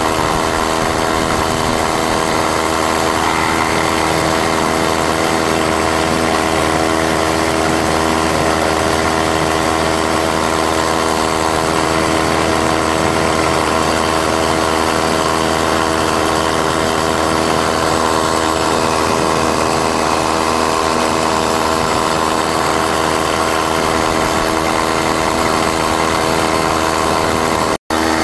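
A 32cc two-stroke Craftsman string-trimmer engine, converted into an outboard motor, runs at a steady speed under load as it drives the canoe. The sound cuts out for an instant near the end.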